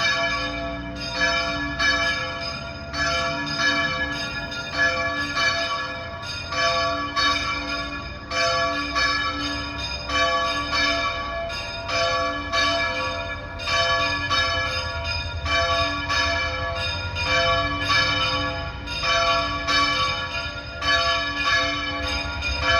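Church bells ringing non-stop in a celebratory peal, struck about once a second and ringing on between strokes.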